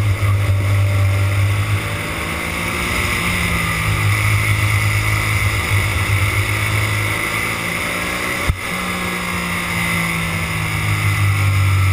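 Go-kart engine heard from the onboard camera, running hard under racing load, its note dropping off twice and climbing again as the kart brakes for corners and accelerates out. A single sharp click about eight and a half seconds in.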